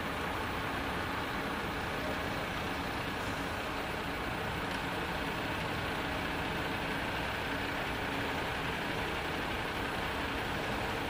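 Steady hum of distant city traffic and engines, with no sudden sounds.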